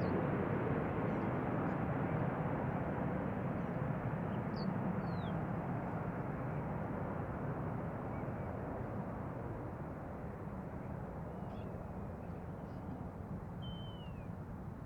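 Airbus A321neo jet airliner's engine noise, a steady rumbling roar that slowly fades away. A few short, high bird chirps sound over it.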